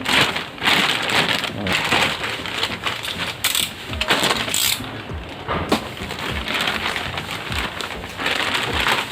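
Crinkling and rustling of packaging as a replacement printer drum unit is handled, with scattered clicks and light knocks of plastic parts.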